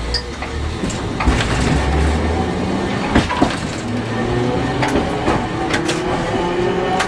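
Nagasaki Electric Tramway streetcar pulling away from a stop. A low hum fills the first couple of seconds, then the traction motors whine, rising steadily in pitch as the tram gathers speed. Scattered clicks and knocks come from the wheels on the track.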